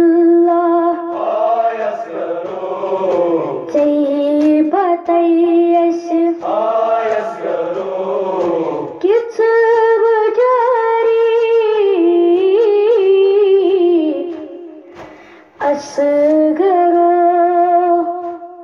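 A boy's solo voice chanting a Kashmiri nauha (mourning lament) without instruments, in long, high, wavering held notes with short breaks between phrases and a longer pause about three quarters of the way through.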